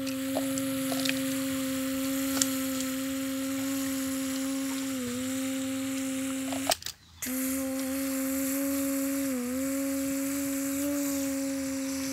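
A child humming one steady low note, dipping briefly in pitch twice and stopping for a breath about seven seconds in. A few light clicks come in the first couple of seconds.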